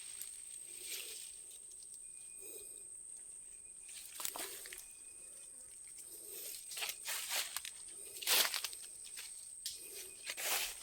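Scattered rustling and crackling of dry leaves and twigs, with a few sharp clicks, loudest about eight seconds in, over a faint steady high whine; no chainsaw is running.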